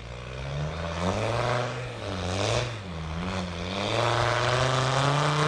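Engine of an off-road 4x4 driving up a slope under load, its revs rising and falling several times, then held higher and steady from about four seconds in.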